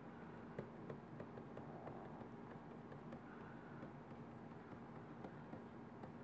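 Faint scattered ticks and taps of a stylus on a tablet screen while handwriting, over a faint steady electrical hum.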